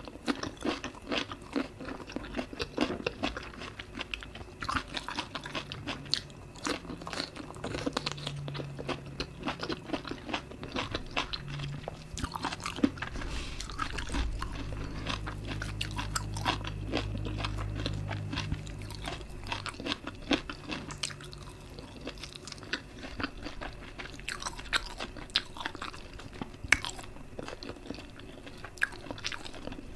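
Close-miked mouth sounds of eating steamed vegetables and sticky rice: continuous crunching and wet chewing, with many small sharp crackles.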